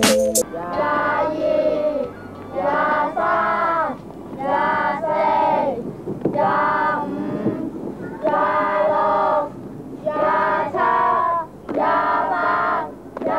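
Children singing a song in short phrases, each a second or two long, with brief pauses between them.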